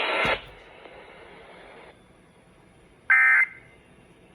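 Emergency Alert System broadcast audio cutting off just after the start, then low hiss, then about three seconds in a short, loud burst of EAS digital data tones: the first of the end-of-message bursts that close the test.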